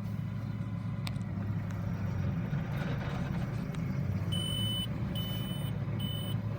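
Tractor running steadily while driving a Massey Ferguson large square baler through its PTO. Three short, high electronic beeps sound in the second half.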